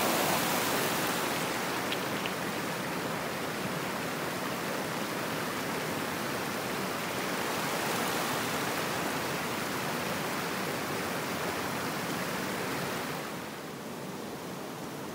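Creek water running after heavy rain: a steady rushing that drops in level near the end.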